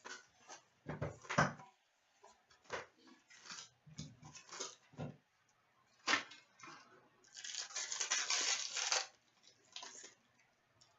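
Opening a sealed trading-card box by hand: scattered clicks and rustles of cardboard and wrapping being handled, with a longer tearing, rustling stretch about seven seconds in.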